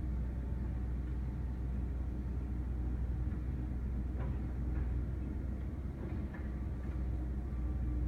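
Komatsu mini excavator's diesel engine running steadily under load as the arm works the bucket in the dirt, with a few faint knocks near the middle.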